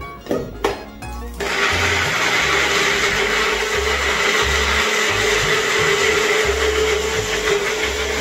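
Small personal blender motor starting abruptly about a second and a half in, after a few clicks of the jar on its base. It then runs steadily at full speed with a high whine, grinding onion, garlic, ginger and green chilli with water into a smooth paste.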